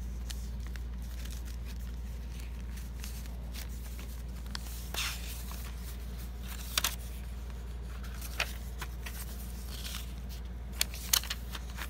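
Paper pages of a handmade journal being turned and handled: a few brief rustles and crinkles, the sharpest two near the end, over a steady low background hum.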